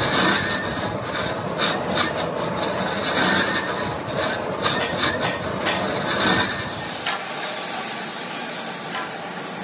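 Lathe cutting tool turning the rim of a large gear blank, a rough scraping rasp of metal being cut, dotted with irregular ticks. About seven seconds in it gives way to a softer, steadier hiss.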